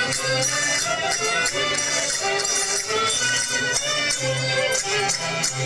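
Algarve charola folk group playing: an accordion sustains chords and bass notes while tambourines and other hand percussion keep a steady, jingling beat.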